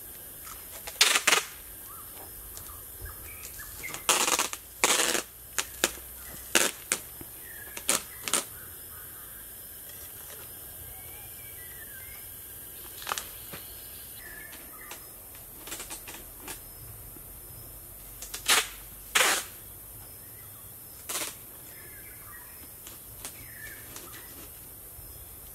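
Clear plastic wrap crinkling and packing tape being pulled off its roll, in about a dozen short, loud, irregular bursts, as the film is taped onto a bamboo frame.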